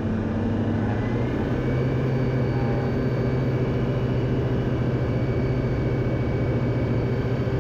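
Diamond DA40 light aircraft's piston engine and propeller at takeoff power, heard inside the cockpit: a steady drone that rises slightly in pitch about a second in as the aircraft accelerates down the runway.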